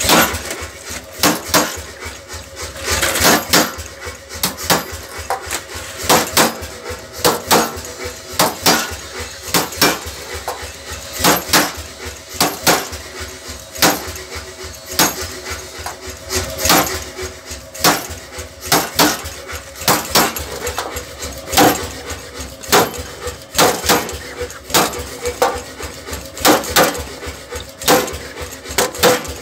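Power hammer pounding a thin steel sheet, beating a hammered ripple texture into it as the sheet is shifted under the die. Sharp metallic blows come about two a second, unevenly spaced, each ringing briefly.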